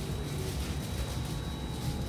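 Cabin of an Alstom Metropolis C830 driverless metro train with its doors shut, moving off from the platform: a steady low hum with a faint high whine over it.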